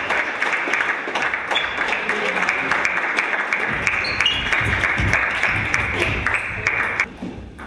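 Spectators applauding in a sports hall, a dense, steady clapping that stops abruptly about seven seconds in.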